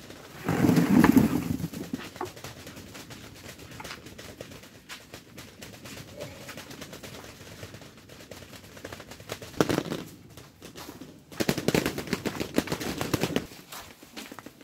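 A bucketful of freshly picked cucumbers is tipped from a plastic bucket into a cardboard box, a rapid clatter of tumbling cucumbers lasting about a second and a half. Scattered quieter knocks and rustling follow, with two more bursts of clattering near the end.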